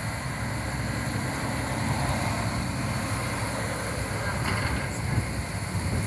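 Bumper boat's small motor running steadily, a low rumble.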